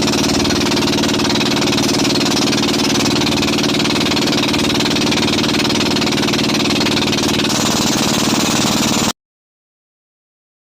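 Engine of a motorized bangka (outrigger boat) running loud and steady at close range, with no change in speed. The sound cuts off suddenly about nine seconds in.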